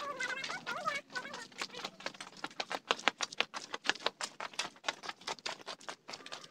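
Quick, light footsteps patting and scuffing on a brick-paved path, several steps a second, with a few high, wavering calls in the first second or so.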